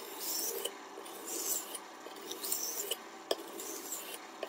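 Steel nakiri blade stroked across a 1200-grit Sharpal diamond whetstone, a scraping hiss with each pass at about one pass a second, with a few light clicks: the final, finer grit refining the edge.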